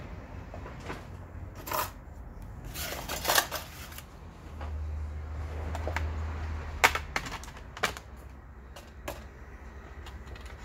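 Scattered clicks and taps of hands and a tool on a laptop's plastic case as it is being taken apart, with a low hum for about two seconds in the middle.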